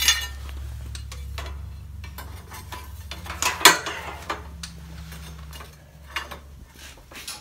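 Metal clinks and knocks as a bungee cord is stretched over a metal outboard fuel tank and hooked to a steel hand-truck frame, with one louder knock about three and a half seconds in. A low steady hum runs underneath and stops about six seconds in.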